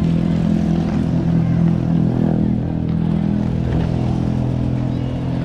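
A motor vehicle's engine running steadily close by, a low, even hum.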